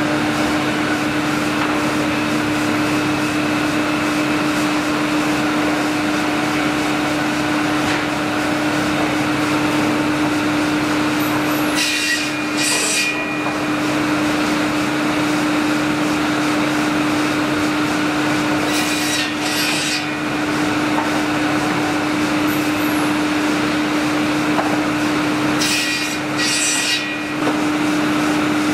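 Drop saw trimmer running, its spinning circular saw blades and hydraulically driven line shaft giving a steady machine hum with one held tone. Three times, a pair of short, sharp hissing bursts sounds about a second apart.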